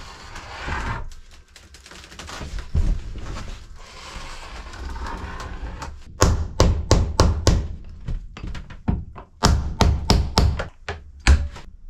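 Scraping and wiping along a freshly glued wooden seam as squeezed-out construction adhesive is cleaned off. From about six seconds in come about a dozen sharp knocks in quick clusters, as wooden wedge blocks are tapped to bring the new cabin-side piece into alignment.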